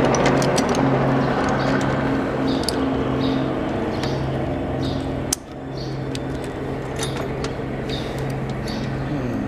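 Small metallic clicks and taps as bolts, washers and spacers are handled and fitted into a light-aircraft wheel and brake assembly, over a steady machine hum. One sharper knock comes about five seconds in.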